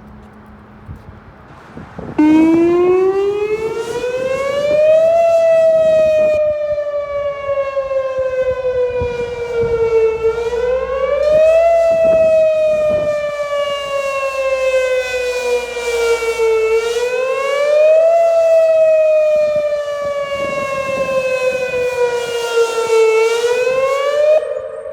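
Outdoor tornado warning siren sounding a wail tone in a routine test. It comes on about two seconds in, rising, then falls slowly and swoops back up about every six seconds, three times in all.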